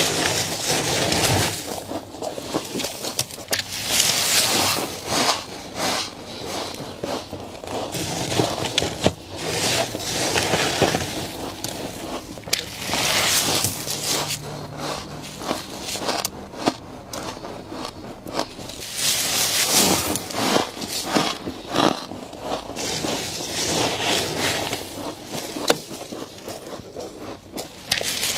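Frost being scraped off and bitten and chewed: irregular, crunchy scraping and crunching in dense bursts.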